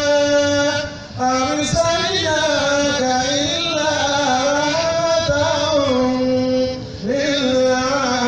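A man's solo devotional chanting into a microphone, in long held notes ornamented with melismatic bends. He breaks for a breath about a second in and again near the end.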